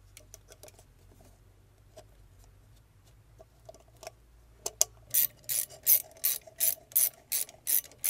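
Light clicks of a metal cover being handled, then from about five seconds in a ratchet wrench clicking in short bursts, about three a second, as it tightens the screw holding the wiring cover on a Polaris booster pump motor.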